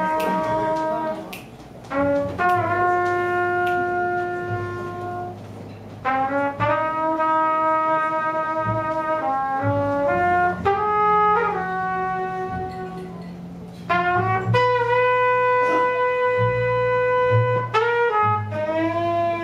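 A jazz quintet playing a slow ballad: a trumpet carries the melody in long held notes, several phrases of a few seconds each with scoops up into the notes, over a bass line and piano.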